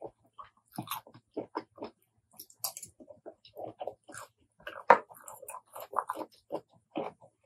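Chewing a mouthful of spicy apple snail salad, in quick irregular short sounds, with one louder bite about five seconds in.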